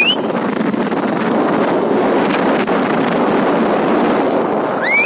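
Wind rushing steadily over the microphone with road noise from a moving motorbike. A short high whistling tone, rising then falling, sounds at the very start and again at the end.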